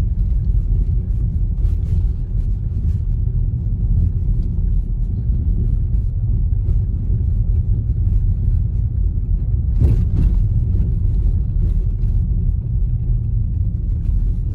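Dodge Charger driving, a steady low rumble of engine and road noise, with a brief knock about ten seconds in.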